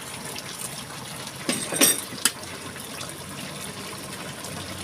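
Chicken curry simmering in a pot, a steady bubbling, with a few sharp clinks in the middle as the pot is checked.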